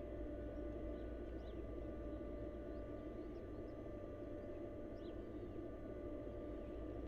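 Steady low hum and background noise carrying a few thin steady tones, with a handful of faint, short, high chirps from a small bird about one, one and a half, three and a half and five seconds in.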